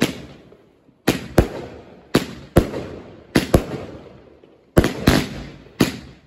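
Fireworks going off: about ten sharp bangs at uneven intervals, some in quick pairs, each fading with an echoing tail, with a short lull before a quick cluster near the end.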